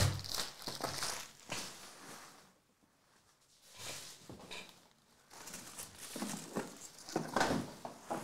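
Plastic shrink-wrap crinkling and tearing as it is pulled off a trading-card box. It comes in irregular crackles, with a short quiet pause near the middle.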